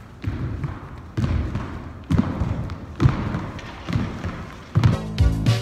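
Dancers' feet thudding on a wooden floor as they leap and land, about once a second, with shuffling between the landings. Music comes in near the end.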